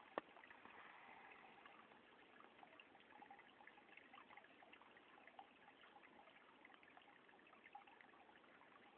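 Near silence: faint trickling of water with small irregular ticks, and one soft click just after the start.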